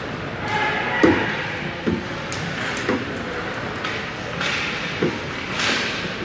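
Ice hockey play in an echoing indoor rink: four sharp knocks of sticks and puck, spread over a few seconds, with short scraping bursts between them.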